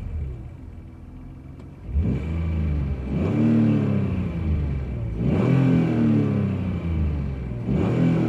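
BMW E46 328i straight-six engine idling quietly, then revved in three blips, its pitch rising and falling each time. The owner is chasing a rattle that appeared after a lightweight flywheel was fitted.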